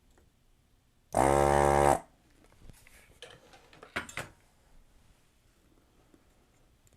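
Heated desoldering gun's vacuum pump buzzing for just under a second, starting about a second in, as it sucks molten solder off a capacitor lead. A few light clicks and taps follow.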